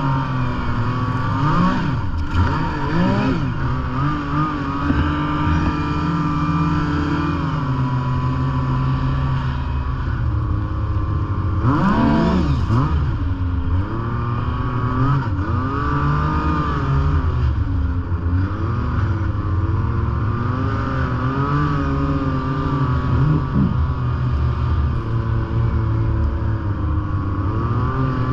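Snowmobile engine running while the sled is ridden along a snowy trail, its pitch rising and falling with the throttle. There are quick sharp revs about two seconds in and again near the middle.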